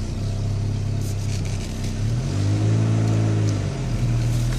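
2000 Renault Laguna's engine heard from inside the cabin, moving off at low speed in first gear. It runs with a steady low hum, rises in pitch a little past two seconds in, and drops back to a lower note about a second and a half later.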